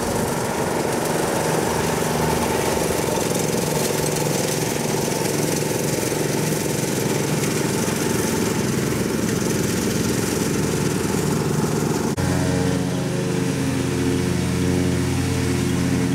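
John Deere D120 riding lawn mower running steadily under load as it mows grass. About twelve seconds in, the sound changes abruptly to a smoother, steadier engine hum.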